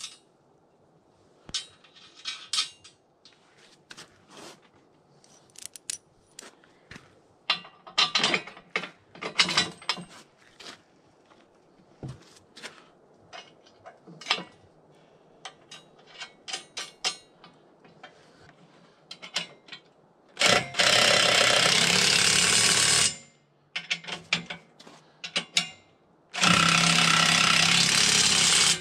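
Metal clinks and taps of bolts and hardware being fitted to a sawmill's steel frame by hand, then a cordless drill-driver running twice near the end, each run lasting about two and a half seconds, driving bolts into the frame.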